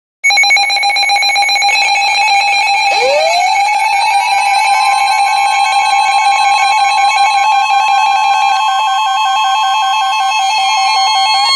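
Weather-radio emergency alert tones: a loud warbling electronic alarm, joined about three seconds in by a steady tone near 1050 Hz that swells up in pitch and then holds. This is the NOAA Weather Radio warning alarm that announces a new warning broadcast, here a severe thunderstorm warning.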